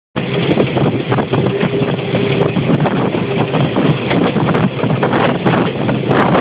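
Narrow-gauge diesel train running along the line, heard from on board: a loud, steady rumble with continual rattling of wheels and carriage, mixed with wind on the microphone.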